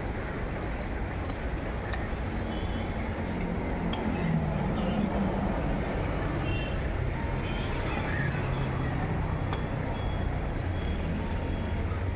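Knife blade scraping scales off a tilapia and tapping the wooden chopping block in short clicks and clinks. Under it runs a steady low background rumble with faint voices.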